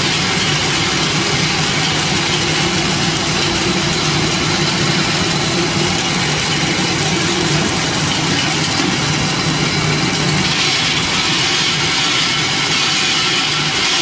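Roasted peanut peeling machine running steadily: an even motor hum under a dense, continuous hiss from the machine.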